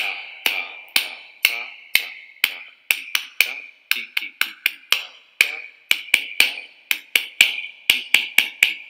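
Played-back recording of a rhythm exercise: sharp percussive taps on a steady beat of about two a second, with quicker extra taps falling between the beats, over a steady hiss.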